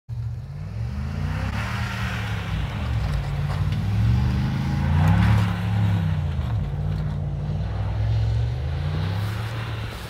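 Pickup truck engine revving up and down again and again as the truck spins its wheels through snow, with a rough hiss of spinning tyres and thrown snow swelling with the revs.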